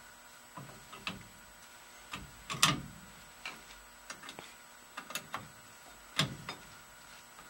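Irregular clicks and knocks of small metal parts and a hand tool being handled while a 1960 Plymouth Fury's steering column is reassembled. The loudest knocks come about two and a half and six seconds in.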